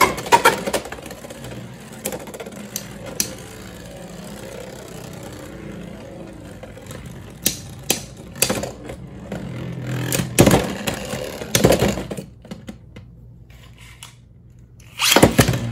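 Two Beyblade X spinning tops, Leon Crest 7-60GN and Shark Edge 3-60LF, spin and clash in a plastic stadium. Sharp clacks of collisions come just after the start, then a steady whir of the spinning tops. More clacks come around the middle and again a few seconds later, then it goes quieter as the tops stop, and a loud burst of clattering comes near the end.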